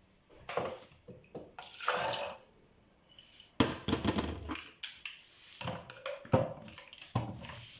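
Water pouring and splashing in a kitchen container, in uneven bursts with small clinks and knocks, as soaked chickpeas and their water are handled.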